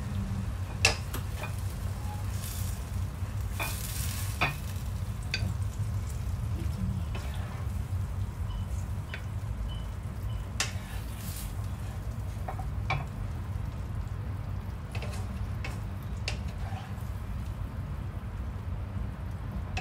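A wooden spatula scrapes and scoops stir-fried broccoli and beef out of a hot frying pan, with light sizzling and scattered knocks and scrapes against the pan. A steady low hum runs underneath.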